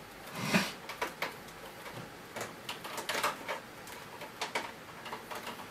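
Power cable of a Bissell carpet washer being unwound from the machine and gathered into loops: irregular light clicks, taps and rustles as the flex slides off and knocks against the plastic body and cable hooks.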